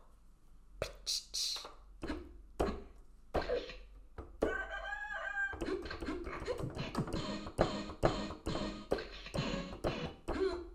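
Beatboxed mouth pops and clicks, then a wavering crow-like sound lasting about a second. From about halfway, an electronic keyboard plays over a steady beat.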